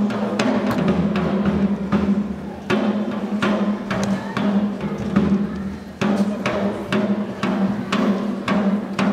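Percussion-led music: drums struck in a steady beat over a held low note.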